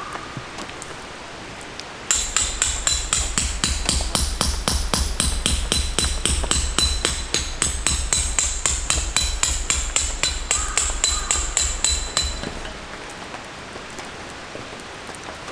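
Hammer striking metal in a fast, steady run of ringing blows, about five a second for roughly ten seconds, starting about two seconds in. Rain patters underneath throughout.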